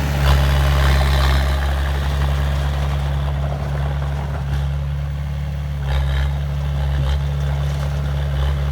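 Heavy machine's diesel engine running steadily with a low, even hum. A few short louder noises sound over it near the start and about six and seven seconds in.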